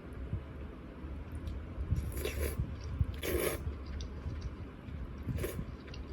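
A person eating, chewing and biting food, with three short louder crunching bites about two, three and a half, and five and a half seconds in.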